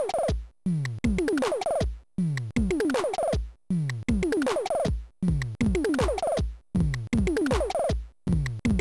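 UTF-9 Samplified, a DIY Arduino Nano-based 8-bit sample drum machine built on the Bleep Drum design, playing a looped beat. Kick drums fall in pitch and pitched blips slide upward, the pattern repeating about every one and a half seconds.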